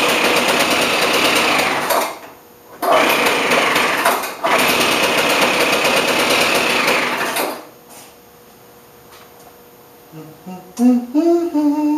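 Small two-stroke engine of a Craftsman leaf blower running in short spells of a few seconds, cutting out, catching again, then dying about two-thirds of the way through. The owner puts the trouble down to a backwards fuel metering diaphragm and a broken fuel hose in the rebuilt Walbro carburetor. A man's voice hums briefly near the end.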